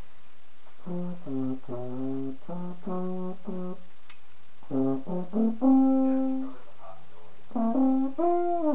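French horn playing groups of short repeated notes, then a long held note about halfway through and a note that slides down in pitch near the end.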